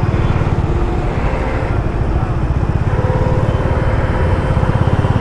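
Honda motorcycle engine running steadily at low speed in slow traffic: a fast, even low pulsing from the engine and exhaust.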